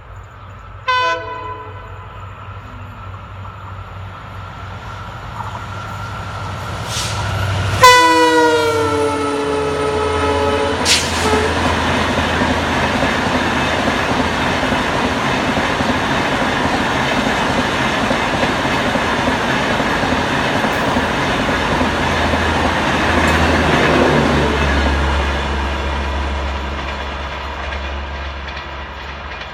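WDP-4D diesel-electric locomotive sounds its horn in a short blast about a second in, then a longer blast near eight seconds whose pitch drops as it passes. The train then rolls by with steady wheel-on-rail noise and clickety-clack of the coaches, fading near the end.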